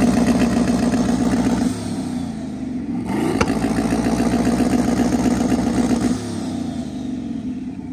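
Lifted GMC Sierra pickup's engine revved and held at high revs. It eases off about two seconds in, sweeps back up, holds, then drops to lower revs near the end.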